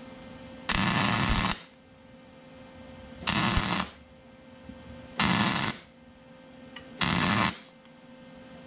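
Wire-feed welder laying four short stitch welds, each a crackling, hissing burst of about half a second to a second, roughly two seconds apart, as the coil-over towers are welded to the truck frame.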